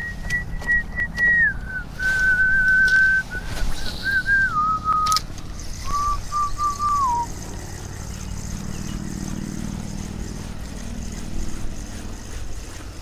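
A person whistling slow held notes that step down in pitch over about seven seconds, ending with a short downward slide.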